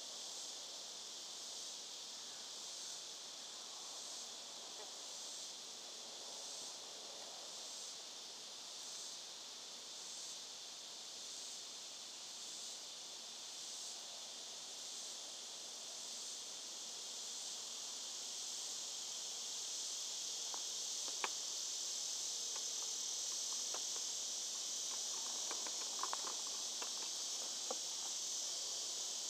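Steady high-pitched insect chorus that swells louder about two-thirds of the way through. A few small clicks from the carving tool working the wooden cane stem come near the end.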